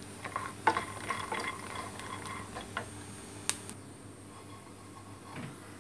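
Small clicks and taps of a frying pan of freshly toasted almonds being handled with a wooden spatula and moved off the heat onto a metal trivet, with one sharper click about three and a half seconds in. No more sizzling.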